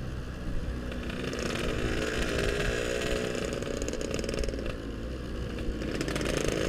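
Yamaha RX-King's two-stroke single-cylinder engine running on the move at low speed, its pitch rising and falling gently with the throttle.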